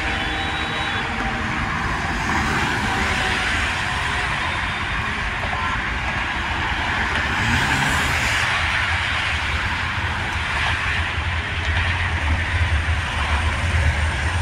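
Steady hiss of passing traffic on an elevated expressway, cars' tyres and engines going by. One car passes close about eight seconds in, and a low rumble builds over the last few seconds.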